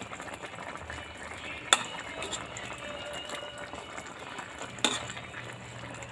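A coconut-milk vegetable stew simmering in a wok while a metal spatula stirs through it, with two sharp clinks of the spatula against the pan, about two seconds in and again near five seconds.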